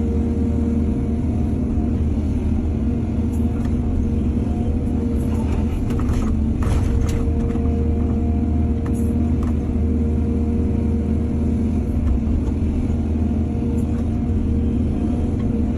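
Excavator's diesel engine running steadily, with a few brief clanks and scrapes around the middle.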